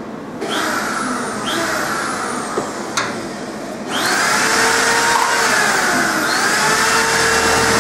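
Jewellery laser welding machine running: a steady rushing hiss starts about half a second in and grows louder about four seconds in. There is a single sharp click about three seconds in.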